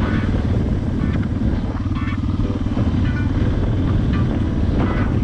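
Suzuki DR650's single-cylinder four-stroke engine running steadily under way on a dirt track, with a fast low pulsing note.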